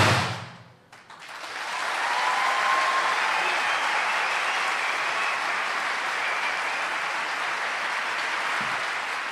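The last loud stroke of a daf frame-drum ensemble rings and dies away. About a second in, a large audience breaks into steady applause.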